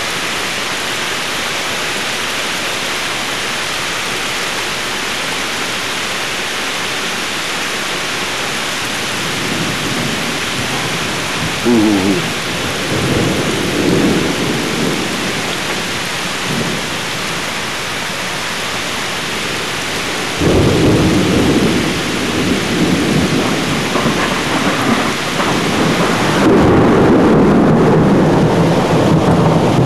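Thunderstorm: heavy rain hissing steadily, with thunder rolling in. A short rumble comes near the middle, then a long rolling rumble starts suddenly about two-thirds through and grows louder toward the end.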